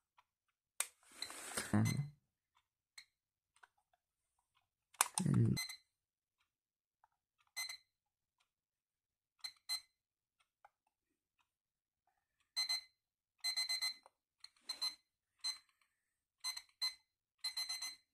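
Two short handling noises as the clock is held, then the battery alarm clock's electronic beeper sounding: high-pitched beeps, first one and then a pair, and from about two-thirds of the way through in longer, quicker groups, as an alarm that steps up.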